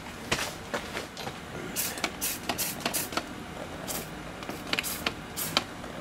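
Leak-detection solution sprayed from a trigger spray bottle onto a just-regreased tapered plug gas valve, a dozen or so short hissing spritzes in quick runs. This is the leak check on the resealed valve under gas pressure.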